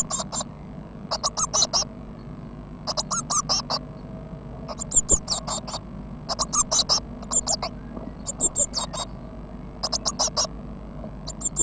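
Blue tit chicks calling: short bursts of rapid, high-pitched chirps, repeated every second or two, over a faint steady electrical hum.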